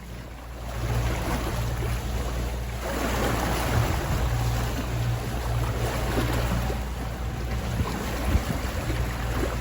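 Sailboat underway: water rushing along the hull and wind on the microphone over a steady low drone, getting louder about a second in.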